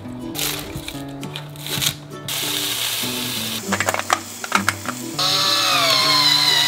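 Background music plays throughout. At first come knocks and rustles of scallions handled on a wooden cutting board. In the middle an electric grinder runs with a steady whir and crackle, and about five seconds in food starts sizzling loudly on a hot pan.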